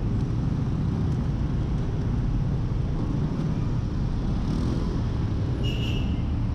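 Steady low rumble of a motorcycle riding slowly through city traffic, engine and wind noise on the bike-mounted microphone. A short high-pitched tone sounds near the end.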